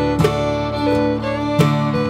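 Instrumental background music: sustained melody notes over a steady bass, with new notes struck about every half second.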